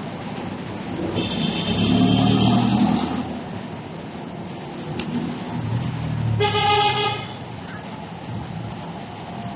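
Road traffic going by, two vehicles passing one after the other, and a vehicle horn giving one short toot a little after the middle.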